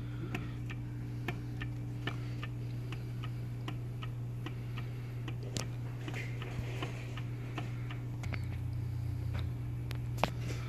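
Light metallic clicks and taps at an uneven pace, with one sharper knock near the end, as the crankshaft of a Ford 4.6 modular V8 is shoved back and forth in the bare block and knocks against its stops. The play is excessive, the sign of a worn-out thrust bearing and a chewed-up crankshaft.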